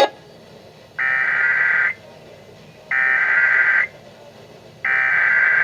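Emergency Alert System SAME header: three bursts of warbling digital data tones, each about a second long with a second's pause between them. This is the coded header that opens a new alert broadcast.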